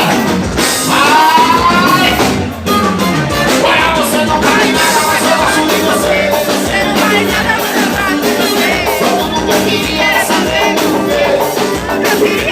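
Live band music playing loud and steady, mostly instrumental, with a voice singing a wavering line about a second in.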